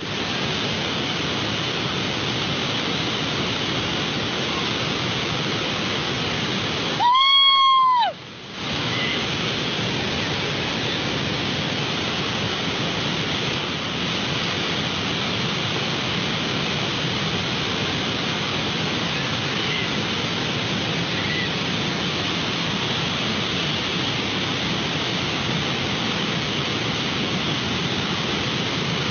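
Muddy floodwater rushing in a steady, even torrent noise. About seven seconds in, a loud high tone sounds for about a second over it and cuts off, and the water noise drops out briefly before it returns.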